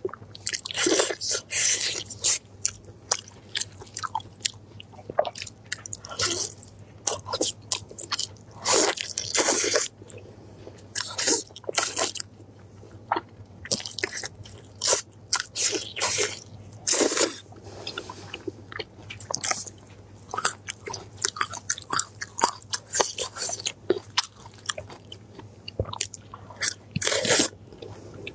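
Close-miked eating: glazed roast meat being torn and bitten off a large bone and chewed, in irregular bursts with short pauses between them.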